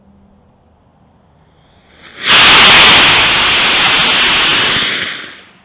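A 54 mm K-class sugar-fuel rocket motor firing on a static test stand: about two seconds in it lights and goes at once to a loud, steady rushing hiss, lasting just under three seconds before tailing off as the propellant burns out. A clean, nominal burn, with the case holding together.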